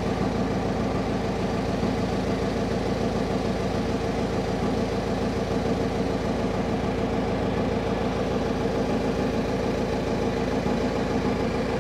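A boat engine running steadily at idle, an even drone with a fast, regular low throb that does not change.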